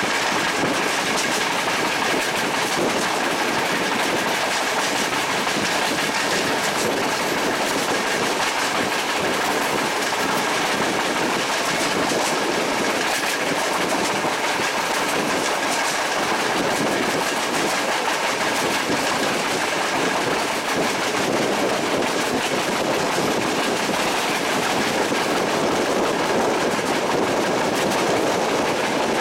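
Train running along the track, its wheels clattering over the rails in a steady rumble, with a thin steady high tone that fades out about two-thirds of the way through.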